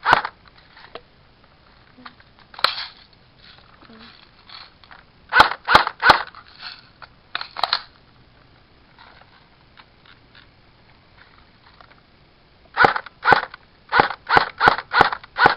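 Electric airsoft rifle firing single shots: a handful of spaced shots in the first half, then a quick string of about seven shots near the end.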